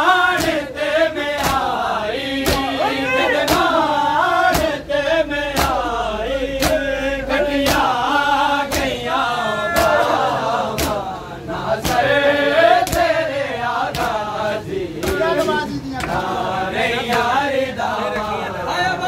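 A group of men chanting a noha (Shia lament) together, with sharp slaps of hands beating on chests (matam) keeping a steady beat, a little under two a second.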